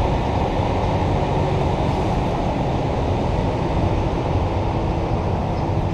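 Steady rumble and hiss of an idling vehicle, with a low hum underneath.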